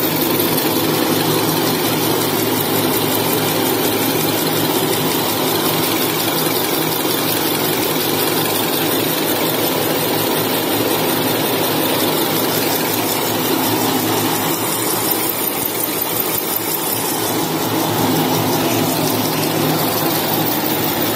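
XY-TQ-G semiautomatic maxi-roll slitting and rewinding machine running: a loud, steady mechanical hum with constant low tones that does not change, as tissue paper runs past its row of circular slitting blades.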